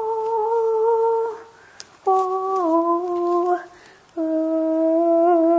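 A person humming three long, steady notes, each lower than the last, with the second sliding down partway through: a mouth-made lightsaber hum.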